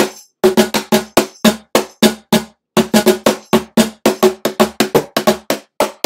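Meinl cajon played by hand: a fast, steady run of strikes, about five a second, mixing deep booming bass tones with sharper slaps, with a brief break about two and a half seconds in.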